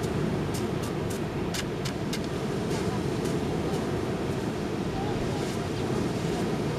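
Ocean surf breaking with wind on the microphone, a steady low noise. A few short clicks come in the first two seconds.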